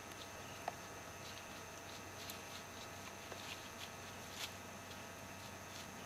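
Quiet background: a steady hiss with a few faint soft ticks, and one short high blip a little under a second in.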